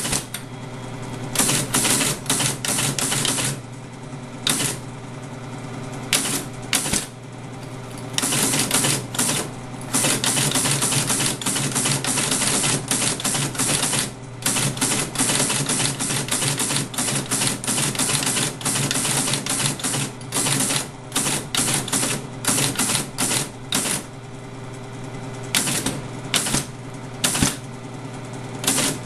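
Teletype Model 33 ASR being typed on: its printing mechanism and paper-tape punch clatter in fast runs of characters, with short pauses between runs, over the steady hum of its running motor. The clatter runs almost without a break through the middle of the stretch.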